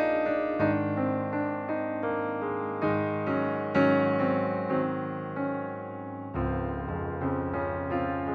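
Background piano music: notes struck about once a second, each fading before the next.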